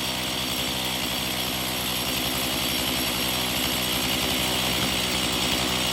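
Chainsaw in an Alaskan chainsaw mill running steadily at full throttle, ripping a poplar log lengthwise into thin boards.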